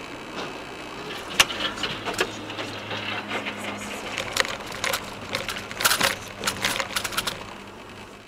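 Car audio: a steady engine hum under a long run of sharp knocks and clatters, the loudest about a second and a half in and again near six seconds, fading toward the end.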